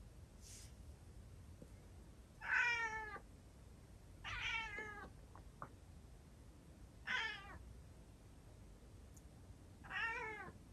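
A calico cat meowing four times, each meow a separate drawn-out cry. The crying is hoarse from long calling. She is a former stray crying at the window to be let outside.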